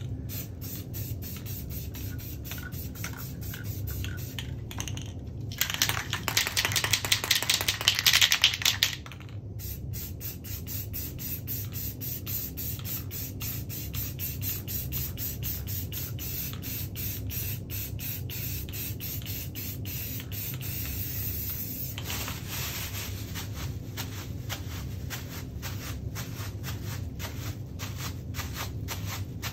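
Aerosol spray-paint can hissing for about three seconds, starting about six seconds in. Before and after it come quick, regular ticking taps as a crumpled plastic bag is dabbed onto the wet paint, over a steady low hum.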